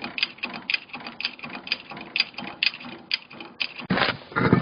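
Ratchet clicking in a steady rhythm, a stronger click about every half second with lighter clicks between, then a louder scraping noise near the end.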